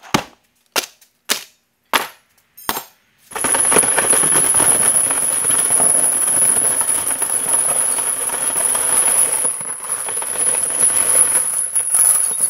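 Steel swing hardware dropped onto a carpeted workbench, five sharp clanks about half a second apart, then a long length of steel chain lowered onto a pile, its links rattling and clinking continuously.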